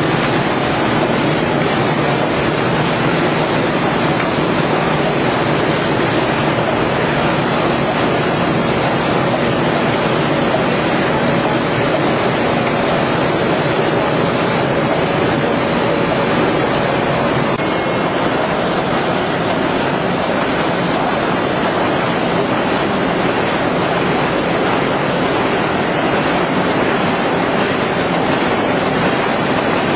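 IBIS Smart-binder line running in line with a Buhrs BB700, a steady, dense mechanical noise with no pauses.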